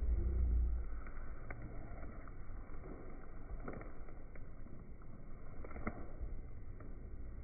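Handling noise: a few light, irregular clicks and rustles over a low steady background noise, as an item or its packaging is handled.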